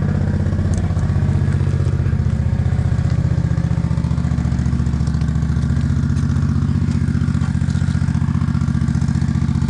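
Engine of a construction machine running steadily at idle, with a fast, even pulse.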